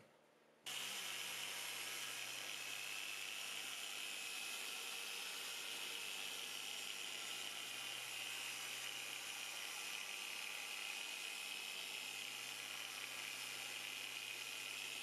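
Small handheld pad machine running against a plastic car headlight lens during restoration. It is a steady whine over a low hum and starts abruptly about a second in.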